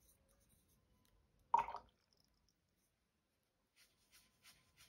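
Paintbrush scrubbing over soft pastel on sketchbook paper to blend the swatch, quick, faint, scratchy strokes about three a second that start near the end. One short, louder sound about a second and a half in.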